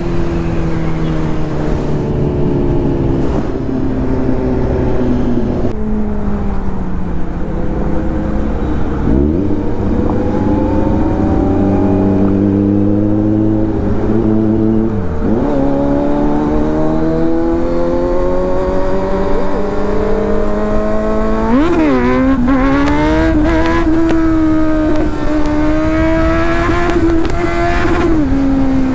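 Kawasaki Z900's inline-four engine running under way with wind noise, its pitch shifting with the throttle: quick drops and pick-ups about ten and fifteen seconds in, a sharp rev about two-thirds through, then a steady climb in pitch that falls away near the end.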